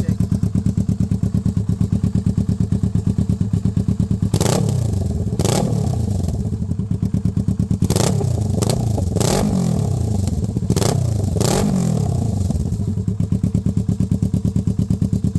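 2017 Kawasaki Z650's parallel-twin engine breathing through a titanium full exhaust with a Yoshimura R11 muffler, idling with an even pulse and then revved in about eight short throttle blips, each starting with a sharp bark and falling back, between about four and twelve seconds in, before settling back to idle.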